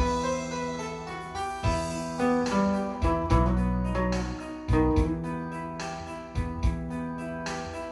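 Instrumental music: guitar with keyboard and bass accompaniment, playing steady rhythmic notes without vocals.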